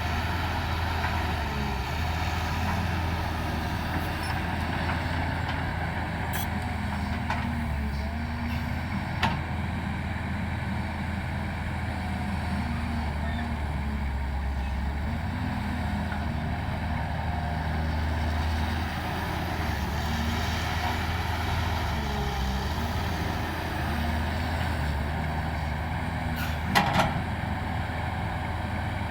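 Diesel engines of heavy earthmoving machines, excavators and dump trucks, running steadily under load. A sharp knock comes about nine seconds in, and a short cluster of knocks comes near the end.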